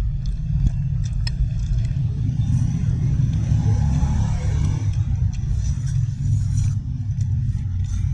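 Steady low rumble, with a few light clicks of a spoon against a plate.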